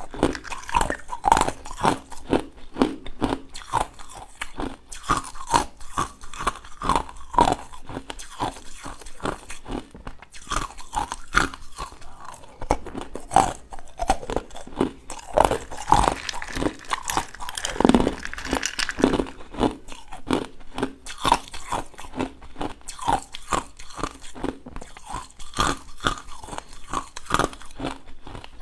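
Purple ice balls being bitten and chewed close to the microphone: a steady run of sharp crunches, several a second.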